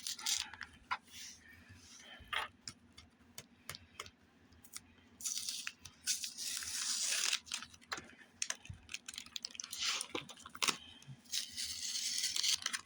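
Painter's tape being peeled off a taped bundle of comics, with rustling of the packaging and many small clicks; longer stretches of peeling hiss about five seconds in and again near the end.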